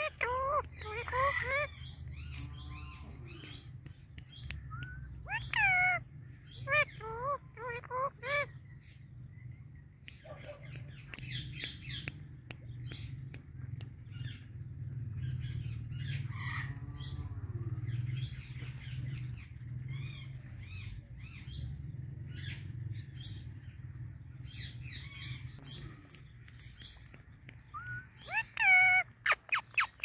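Indian ringneck parrot calling in bursts of short notes that slide up and down in pitch, with a quick run of louder calls near the end. High chirping and a low steady hum run underneath.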